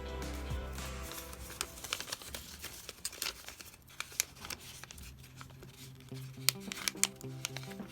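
A square sheet of origami paper being folded and creased by hand: crinkling rustles and crisp clicks, the sharpest two near the end, over soft background music.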